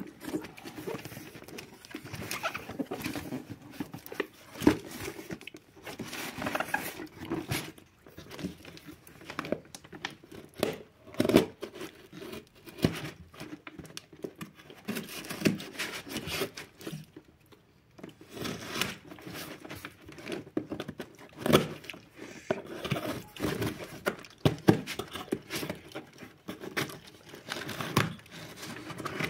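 Hands handling a taped cardboard shipping box and tearing it open: irregular scraping, tapping and tearing of cardboard and plastic packing tape, with a short lull a little past the middle.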